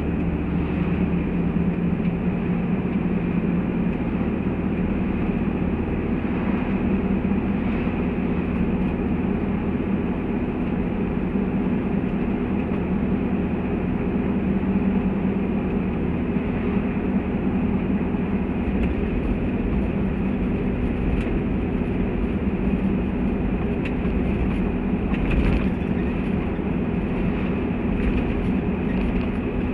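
Toyota Land Cruiser 70 heard from inside the cab while cruising at a steady speed: a steady engine drone mixed with road and tyre noise.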